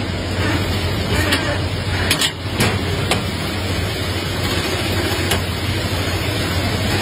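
Steady low machine hum over even background noise, with a few sharp clicks and taps from handling wire and tags, clustered about two seconds in.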